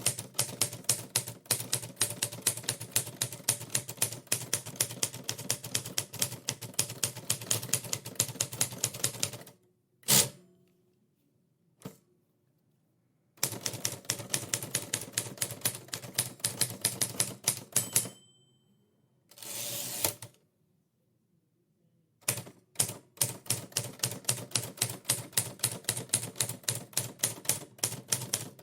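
Typewriter keys struck in fast runs, broken by pauses. Between the runs there is a single loud clack with a short ring, and later a brief sliding rasp.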